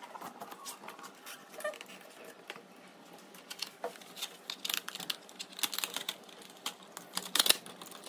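Light, irregular clicks and taps of hands handling the printer's plastic and acrylic panels. They come more often after about four seconds, with one louder tap near the end.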